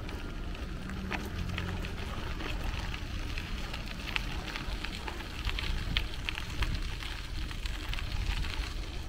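Outdoor wind rumbling on the microphone, with many light, irregular crackling ticks scattered over it.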